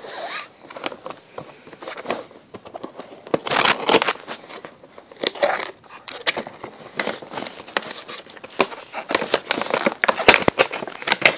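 Cardboard and plastic packaging of a Funko vinyl figure box rustling and crinkling as it is opened by hand, with many irregular clicks and taps.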